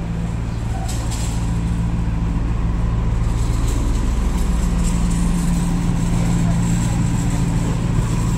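Street traffic dominated by a double-decker bus's diesel engine running alongside with a steady low hum.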